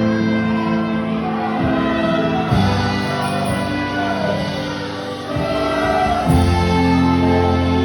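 Gospel music: singing voices over sustained instrumental chords, with the bass moving to new chords about two and a half and six seconds in.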